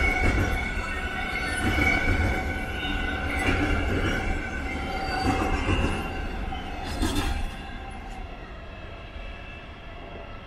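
Freight train of yellow covered wagons rolling past: a low rumble with several steady high-pitched tones from the wheels and a knock about every two seconds. It drops away about seven and a half seconds in as the train moves off.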